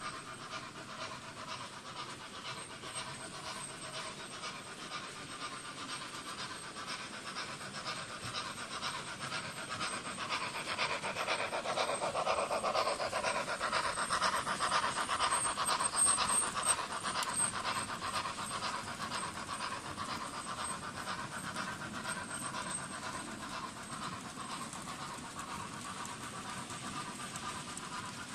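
Model railway trains running on the layout: a steady rhythmic whirr and rattle of locomotives and wagons on the track. It swells a little before the middle as a train passes close by, then eases off again.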